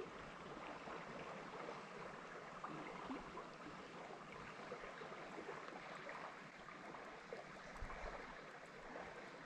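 Faint, steady rush of flowing river water, with a few light ticks.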